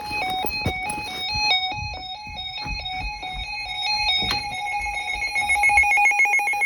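Electronic emergency-alert tones: a melody of pure beeps stepping from pitch to pitch over low thumps, quickening into a rapid trill between two pitches near the end.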